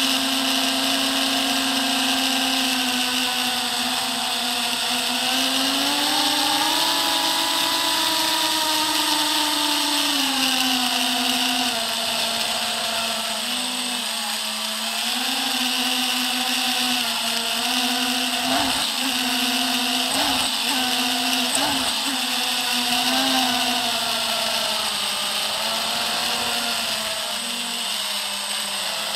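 FPV quadcopter's motors and propellers whining, heard from the camera on the quad; the pitch rises and falls with the throttle, with a few brief throttle chops about two-thirds of the way in.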